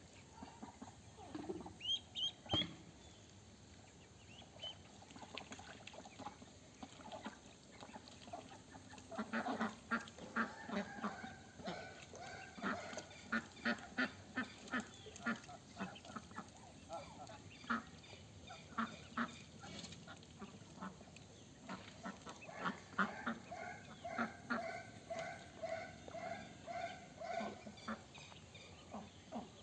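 A flock of white Pekin ducks quacking in quick repeated runs, with a few high peeps near the start. The quacking grows dense from about a third of the way in.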